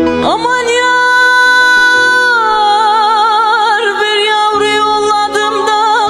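A woman singing a Turkish folk song (türkü) with instrumental accompaniment. She slides up into a long held note, which breaks into a wide vibrato about two and a half seconds in.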